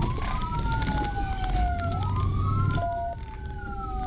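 Police cruiser siren on wail: two tones rise and fall slowly out of step with each other, over the low rumble of the moving cruiser.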